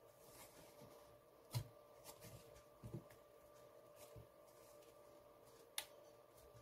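Mostly near silence with a faint steady hum, broken by small clicks and light scraping of a thin metal tool prying at a plastic part of a power bank's housing; two sharper clicks come just under two seconds in and near the end.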